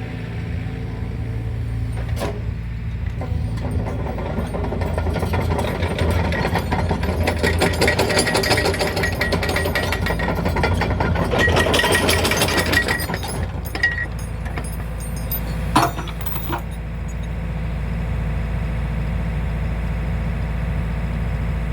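Excavator's diesel engine running steadily. It works harder through the middle, with a high whine, and a few sharp clanks come later, the loudest about 16 seconds in.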